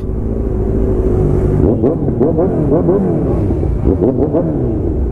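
Motorcycle engines running, then from about two seconds in several quick revs rising and falling in pitch, overlapping one another.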